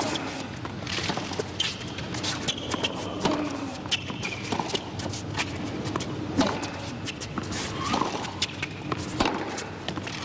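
Tennis rally on a hard court: racket strikes on the ball going back and forth, with sneakers squeaking on the court surface between shots.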